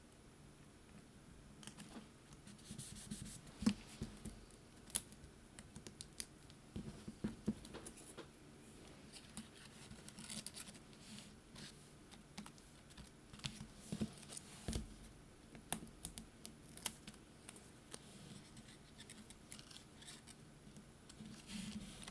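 Scattered light taps, clicks and rustles of paper and cardstock pieces being handled and pressed down onto a card, with a few sharper knocks on the work surface.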